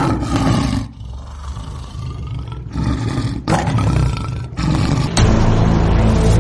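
Lion roaring and growling in a run of loud calls, each about a second long with short breaks between them. About five seconds in, a louder, deeper sustained sound takes over.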